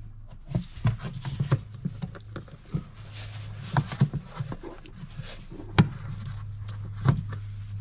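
Plastic engine air filter housing being handled and fitted: a string of sharp clicks and knocks, the loudest about six and seven seconds in, with a scraping rustle around three to four seconds in. A steady low hum sits underneath.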